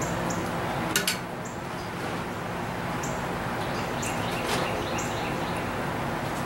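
Small birds chirping now and then over a steady background hiss, with a sharp double metallic clink about a second in as a bending tool works the iron rose's petals on the anvil.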